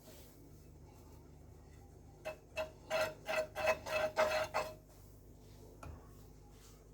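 A metal spoon clinking quickly and repeatedly against a metal vessel, about ten ringing taps over two seconds, as ghee is scooped out for the tawa. A single knock follows near the end.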